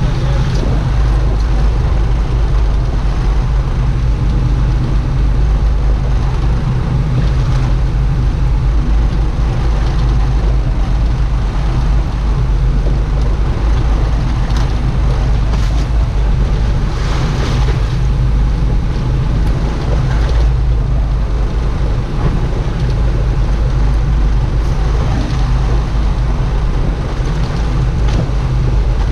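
Boat engine running steadily under way, a constant low drone mixed with the rush of water and wind.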